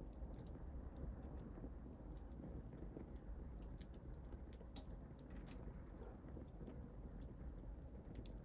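Wood fire crackling in a fireplace: a steady low rumble of the flames with irregular sharp pops and crackles.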